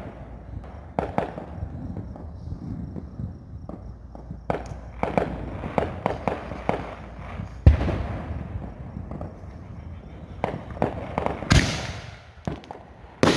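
Consumer fireworks going off: a run of irregular sharp pops and crackles, with a heavy low bang about eight seconds in and two loud, sharp blasts near the end.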